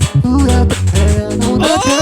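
Loop station beatbox performance: layered vocal loops with a heavy bass line, beatboxed drums and short melodic vocal notes, and a sung note that slides up and holds near the end.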